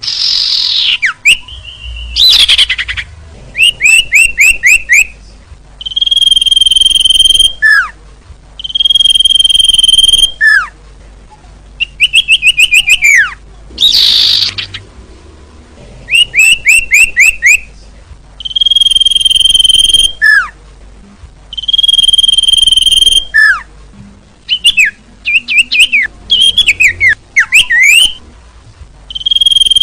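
Bird calls played as a trapping lure: bursts of quick downward-swept chirps alternate with long, steady, high whistles, each followed by a short falling note, the phrases repeating every few seconds. A harsh, rasping call breaks in twice.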